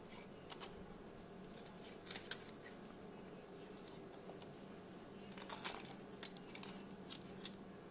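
Faint scattered clicks and soft crackles of fingers breaking and pressing juice-soaked rusk pieces into a metal cake tin, loudest about two seconds in and again just past five seconds, over a low steady hum.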